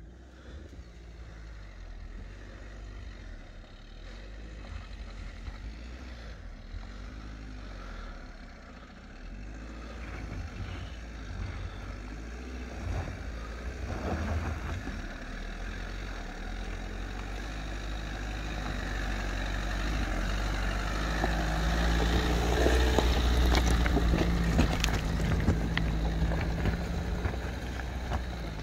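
Dacia Duster's 1.5 dCi four-cylinder turbodiesel running as the SUV drives down a stony dirt track and passes close by, growing steadily louder. Its tyres crunch and click over loose stones as it goes by, near the end.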